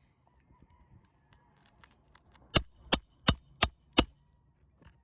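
Five quick hammer blows, about three a second, starting past the middle, driving a roofing nail back into an asphalt shingle through a Roof Snake nailing tool, with faint scraping and handling before them.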